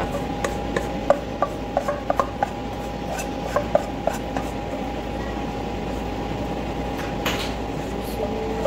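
Light clicks and taps of a kitchen utensil against cookware while pancakes are being made, a cluster of short taps in the first four seconds and one duller knock near the end, over a steady hum.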